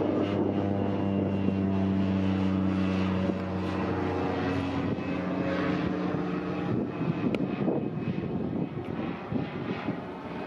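Light propeller airplane flying overhead, its engine giving a steady drone that fades away after about seven seconds, leaving fainter rough noise.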